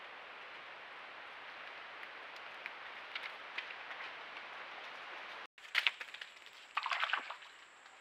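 A steady hiss of creek water with a few faint ticks and splashes from a raccoon foraging at the edge. After a brief dropout come two bursts of crackling rustles, an animal's footsteps over leaf litter and sand, over a faint high whine from the trail camera.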